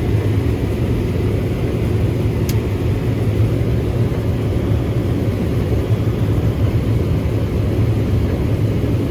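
Combine harvester running steadily while harvesting corn: a loud, even, low machine drone.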